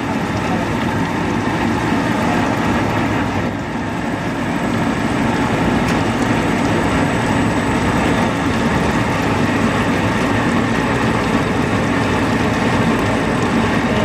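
Root vegetable peeling and washing machine running steadily, its spiral brush roller, driven by an electric gear motor, churning potatoes through with a continuous mechanical noise.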